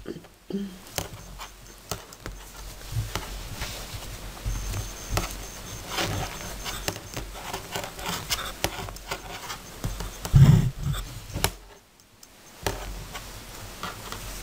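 Metal knitting needles clicking and wool yarn rustling as stitches are knitted by hand, in small irregular ticks, with one louder dull thump about ten seconds in.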